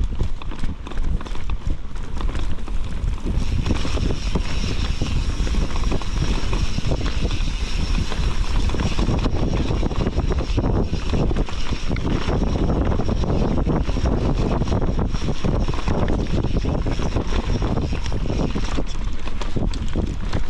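Mountain bike being ridden down a trail: wind rushing over the microphone, with the constant clatter and rattle of the bike over rough ground. A thin steady high tone runs through most of it.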